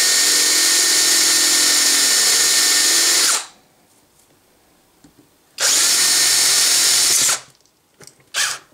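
Electric drill with a 3/16-inch bit drilling out the head of a steel rivet-like trigger-group pin in a Saiga rifle's stamped receiver. It runs steadily for about three and a half seconds and winds down, pauses about two seconds, then runs again for about a second and a half. A short click comes near the end.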